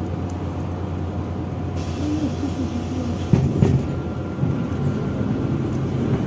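MAZ-103 city bus diesel engine running steadily, heard from inside the bus. About two seconds in, a steady high hiss of air starts, and a second later come a couple of loud clunks as the bus gets ready to pull away from the stop.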